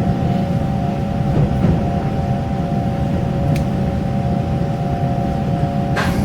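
Taiwan Railway regional express train running, heard from aboard: a steady low rumble under a constant hum of several tones, with a sharp click about halfway and a couple of knocks near the end.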